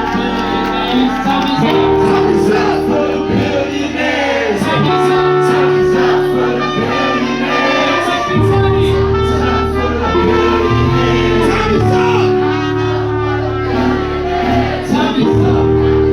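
Live band music: loud held chords over a deep bass line, changing every few seconds.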